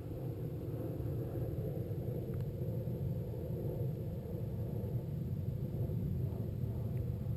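Steady low rumble with no distinct events, picked up by the weather-balloon payload's onboard camera microphone at high altitude.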